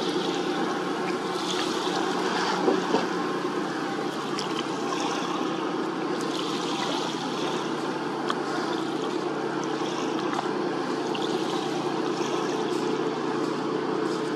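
A boat's engine running with a steady low drone, with water splashing and trickling over it.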